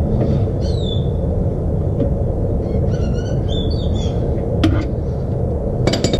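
A steady low rumble of background noise, with small birds chirping twice, about a second in and again around three seconds in, and two sharp clicks near the end.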